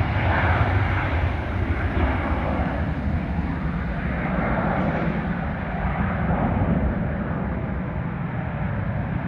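Jet noise from a Dassault Falcon 2000EX's two Pratt & Whitney Canada PW308C turbofans at takeoff power: a steady, deep rumble whose higher part slowly dulls as the jet climbs away.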